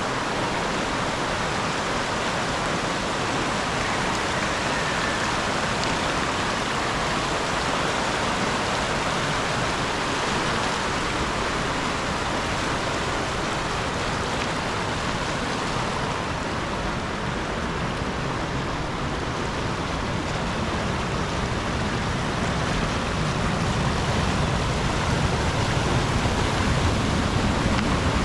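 Steady rushing water noise with no distinct events, growing a little louder near the end.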